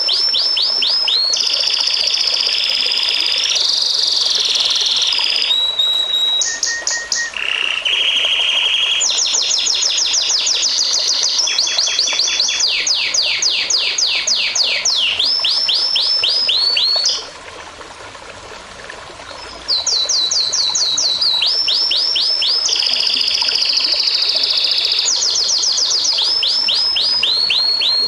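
A songbird singing a long, varied song: phrases of fast repeated sweeping notes alternate with held whistled notes. The song breaks off for about two seconds past the middle, then resumes. Underneath runs the faint, steady rush of a stream.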